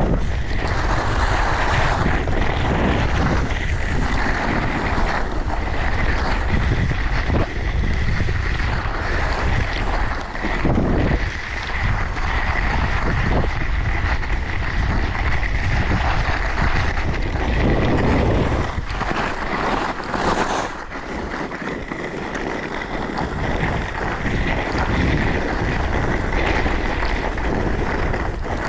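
Wind buffeting a GoPro's microphone during a downhill ski run, with skis hissing and scraping over groomed snow. The rush eases briefly about two thirds of the way through, then picks up again.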